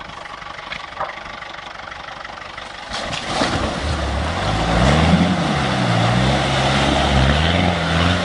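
Land Rover 110 Defender's diesel engine driving through mud and water, growing louder about three seconds in as it nears. About five seconds in it revs up and down, then holds a steady pull, with a hiss of tyres splashing underneath.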